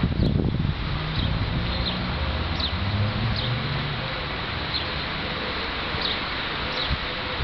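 A small bird chirping, short falling chirps about once a second, over steady wind noise with a low rumble that is strongest in the first second.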